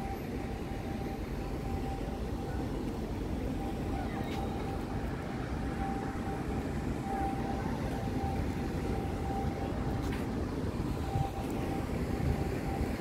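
Steady outdoor city noise: a low, even rumble of distant traffic with a faint steady hum above it.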